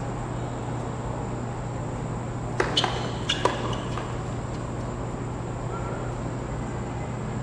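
Tennis ball being struck and bouncing on a hard court: a quick cluster of four sharp pocks about three seconds in, with a couple of fainter ones after, over a steady low hum.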